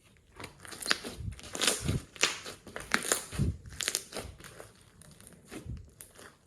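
Slime being squeezed and pressed by hand, with dense crackling and clicking and a few low squelches.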